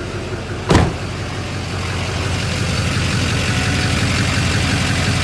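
LBZ Duramax 6.6-litre V8 turbo-diesel idling steadily just after start-up on a new CAT oil filter conversion, growing louder as the microphone is brought down beside the engine. A single loud thump about a second in: the truck's door shutting.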